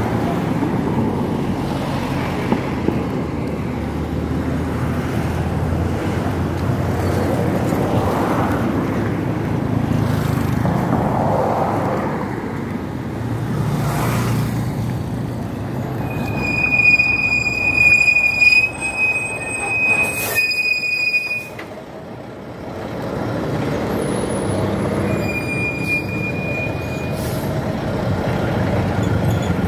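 Road traffic going by close at hand: engines and tyres in a steady rumble. A high, steady squeal sounds for several seconds past the middle, with a sharp knock near its end, and once more, shorter, a few seconds later.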